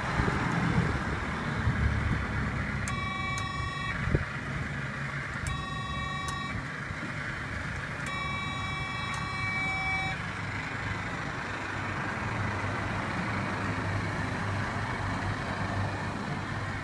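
Electronic horn of a coin-operated kiddie ride tractor sounding three times: two toots of about a second each, then a longer one of about two seconds. A low steady hum runs underneath throughout.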